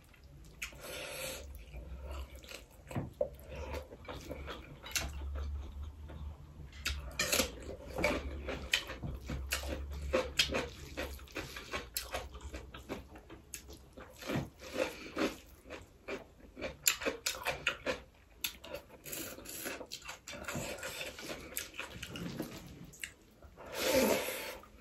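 Close-up eating sounds of rice and curry eaten by hand: wet chewing, lip-smacking and mouth clicks, many short sharp ones in a row. Near the end comes a longer, louder wet slurp as a handful goes into the mouth.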